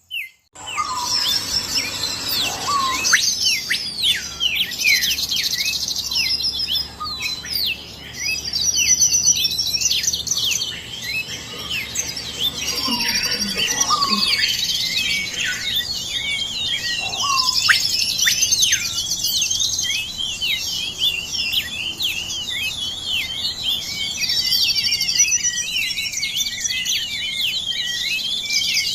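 A dense chorus of many birds chirping and calling at once, overlapping rapid chirps and quick whistles, many sweeping down in pitch. It starts abruptly about half a second in and keeps up without a break.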